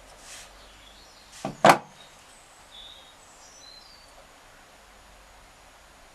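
Two sharp clicks in quick succession about a second and a half in, as an awl is worked through a plastic bottle cap, over a faint steady hiss.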